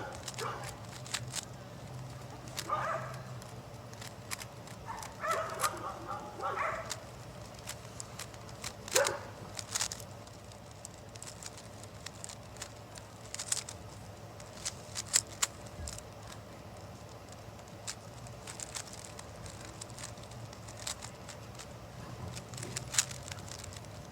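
GAN speedcube being turned during a solve: irregular sharp clicks of the plastic layers snapping round. A dog whines a few times in the first seven seconds or so.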